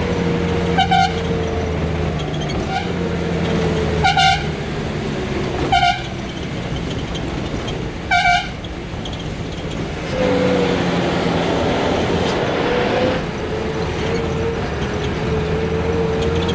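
Bus engine running steadily under way, with four short horn honks about one, four, six and eight seconds in; the engine gets louder about ten seconds in.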